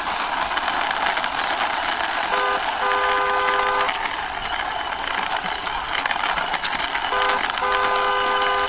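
Toy truck pushed along by hand, its wheels rolling with a steady rushing noise. A two-tone horn honks twice, each time a short toot then a longer one, about two seconds in and again near the end.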